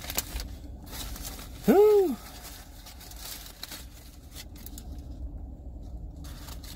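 Aluminium foil burger wrapper crinkling and rustling as it is unwrapped by hand. About two seconds in comes a short hummed note from a man's voice, rising then falling, which is the loudest sound.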